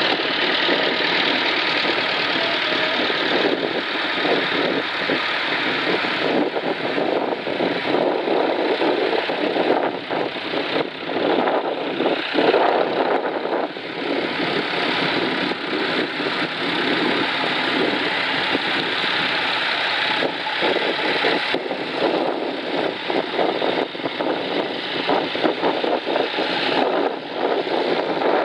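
Several vintage farm tractors' engines running at low road speed as the tractors pass one after another on a gravel track.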